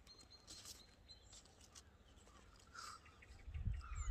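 Faint birdsong: small birds chirping in short high notes. Near the end a gust of wind buffets the microphone with a low rumble.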